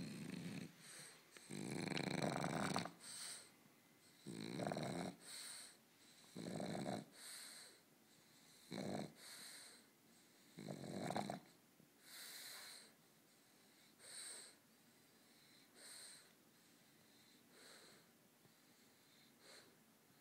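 French bulldog breathing noisily through its short, flat snout, a loud rasping breath every second or two, growing fainter in the second half. This noisy breathing is typical of the breed's cramped airway.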